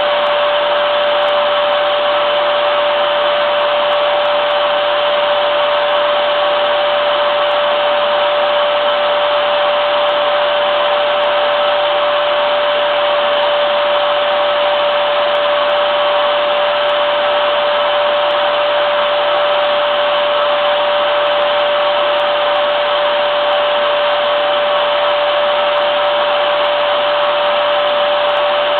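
Vacuum cleaner running steadily: a constant rush of air with a steady mid-pitched motor hum through it, never changing in speed or loudness.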